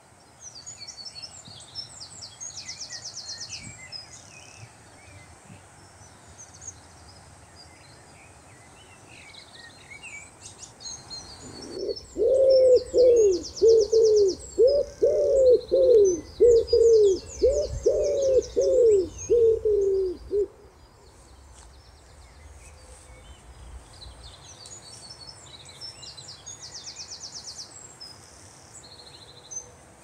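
Wood pigeon cooing: a loud run of about a dozen low, repeated coos starting about twelve seconds in and stopping some eight seconds later. Faint high chirps and trills of small songbirds go on underneath throughout.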